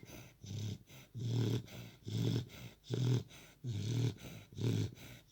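American Bulldog snoring in its sleep: a low snore on each breath, about two a second, in a steady rhythm.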